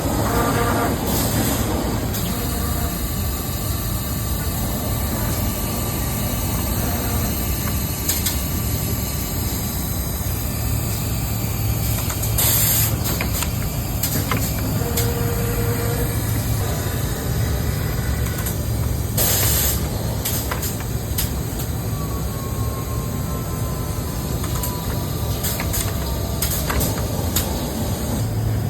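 Vacuum glass sealing machine running with a steady low hum, broken by short hisses of air, the loudest about twelve seconds in and again near twenty.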